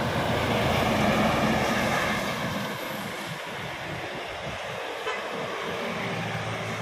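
Large cab-over truck driving past, engine and tyre noise loudest about a second in, then fading as it pulls away. A minibus engine follows close behind near the end.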